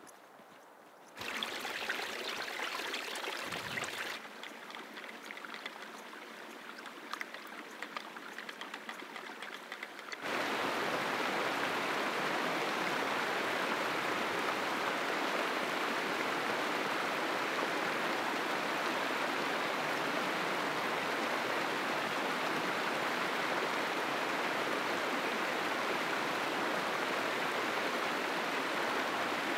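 Mountain stream running over rocks: a steady rushing that starts abruptly about ten seconds in and holds even. Before that, fainter outdoor noise with scattered ticks and crackles.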